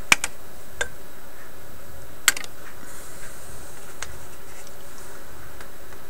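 A few sharp clicks and taps from hands and tools working among the wiring and parts of a tube radio chassis, the loudest just after the start and a little past two seconds in, over a steady low hum.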